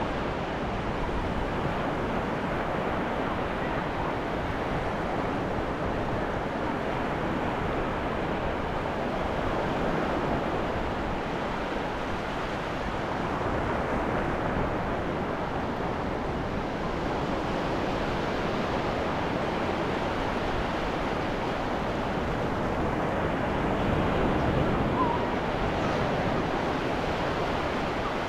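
Ocean waves washing onto a beach: a steady surf wash that swells a little about ten seconds in and again near the end.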